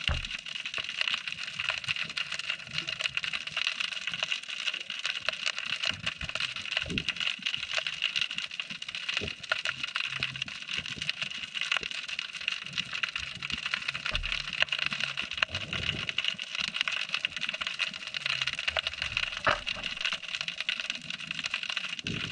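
Underwater crackle typical of snapping shrimp: a steady, dense field of tiny clicks heard through a submerged camera, with a few dull low thumps along the way.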